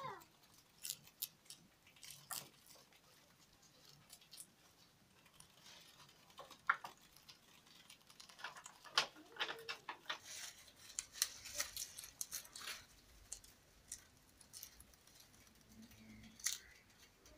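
Grasscutters (greater cane rats) feeding on fresh grass stalks and leaves: irregular crisp crunches, snaps and rustles from chewing and tearing, busiest in the middle.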